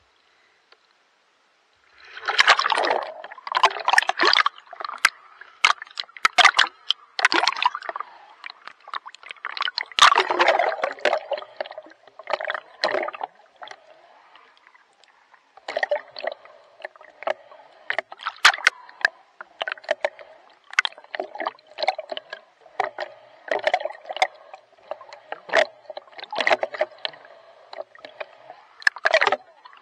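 Water splashing and sloshing from a swimmer's strokes, starting about two seconds in. The splashes are irregular at first, pause briefly in the middle, then settle into a steadier beat of roughly one stroke a second.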